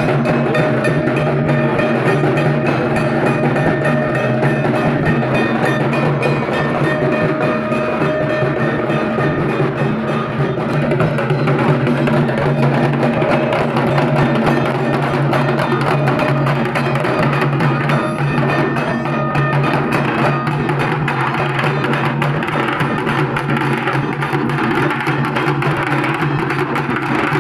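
Dhak, the large Bengali barrel drum, beaten with thin sticks in a fast, unbroken rhythm at a steady loud level.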